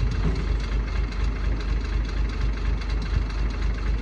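An engine idling steadily with an even, regular pulse.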